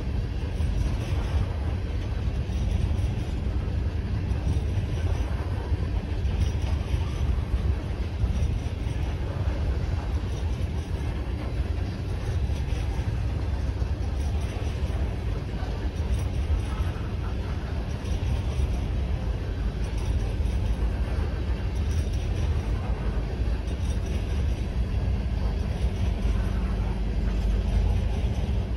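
Empty coal train's hopper cars rolling past: a steady low rumble of steel wheels on the rails.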